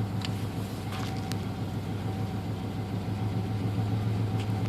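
Ford Ranger's 2.9-litre V6 idling roughly, a steady low hum with a few faint ticks.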